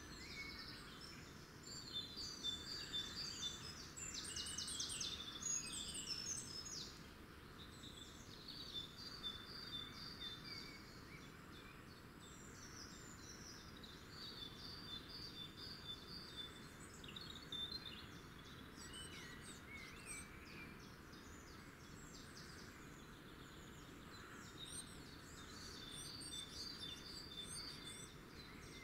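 Small songbirds singing, with short, high, repeated chirping phrases that come and go, busiest in the first few seconds, over a steady background hiss of open-air ambience.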